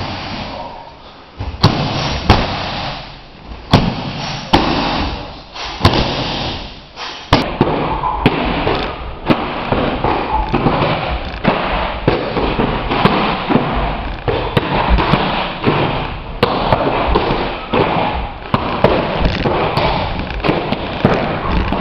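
Kicks and punches landing on a kick pad and focus mitts: sharp slapping thuds, about one every second at first, then coming thick and fast from several pairs striking at once.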